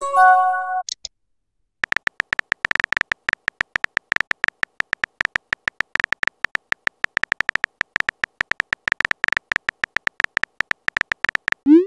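Chat-app sound effects: a short electronic chime of several notes as a message arrives, then, after a brief pause, a fast, steady stream of keyboard tap clicks as a message is typed out. Right at the end a rising swoosh begins.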